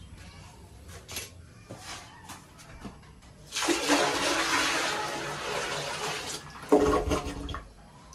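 A newly installed toilet being test-flushed: a rush of water starts suddenly about three and a half seconds in and tapers off over about three seconds, followed by a brief louder burst near the end.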